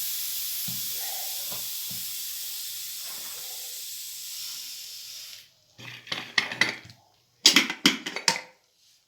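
Pot of onion soup hissing on the stove, a steady hiss that fades slowly and cuts off suddenly about five and a half seconds in. A spoon then clinks and scrapes against the pot in quick strokes.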